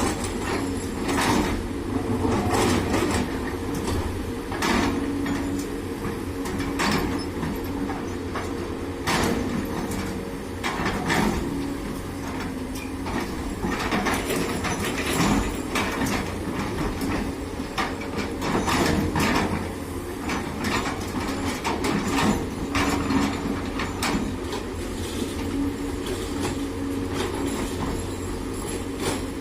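Doosan DX200A excavator's diesel engine running steadily under load, with irregular clanks and knocks as the bucket scrapes and drops stone-mixed soil into a steel dump-truck bed.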